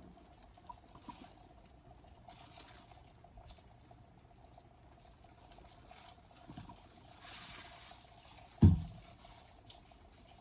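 Small handling noises from tie-dye work, light taps and faint liquid patter over a steady faint hum. A brief hiss comes a little past halfway, then one loud thump.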